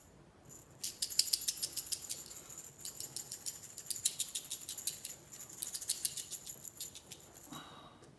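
Black and white peppercorns rattling as they are shaken together in a covered glass pepper-grinder jar to mix them: a dense, rapid clatter that starts about a second in and stops near the end.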